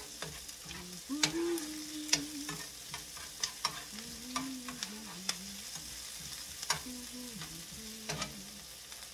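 Chopped onions sizzling in hot oil in a frying pan, stirred with a metal utensil that clicks and scrapes against the pan over and over.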